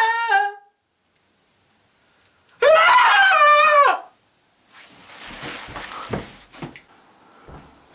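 Two boys screaming in turn: one scream breaks off about half a second in, and a second, wavering scream follows after a short silence and lasts about a second and a half. A quieter rustling noise with a few soft thumps comes after it.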